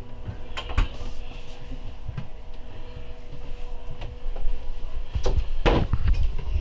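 A small door or drawer clicks shut twice, over a faint steady hum. From about five seconds in come heavier knocks and a low rumble.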